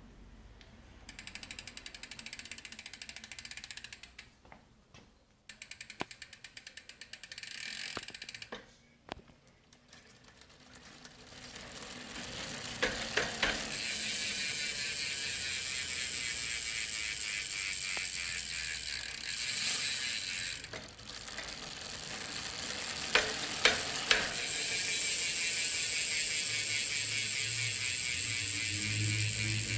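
Spike DH R150/157 rear hub freewheeling: its pawls ratchet in a rapid clicking buzz as the wheel spins. The buzz comes in short spells for the first ten seconds or so, then runs almost without a break for the rest, with a few sharper clicks mixed in.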